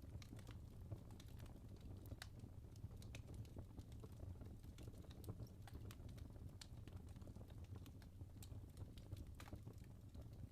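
Wood fire in a fireplace, logs burning with soft, irregular crackles and pops over a low, steady rumble of the flames.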